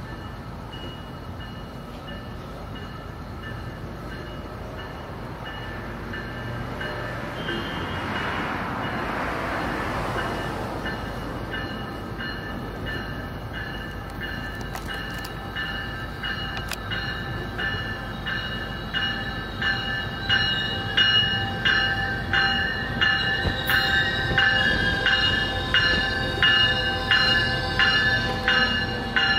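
Metrolink passenger train approaching, its locomotive bell ringing in a steady repeated beat that grows louder as the train nears.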